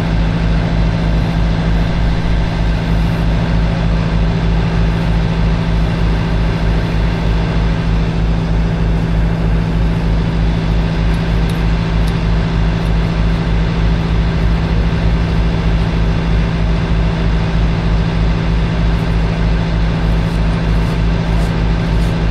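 Heavy engine running steadily at a constant speed, with an even low throb.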